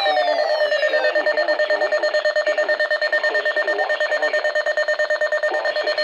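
Sangean weather alert radio sounding its alert alarm: a loud, rapidly pulsing beep held at an even pitch. Over about the first second, several falling tones fade out beneath it.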